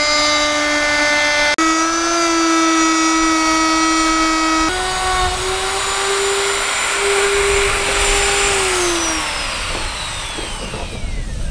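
Bosch router running at full speed, cutting the edge of a plywood sheet, with a steady high whine whose pitch steps up twice. About eight seconds in it is switched off and winds down, the whine falling in pitch over a second or two.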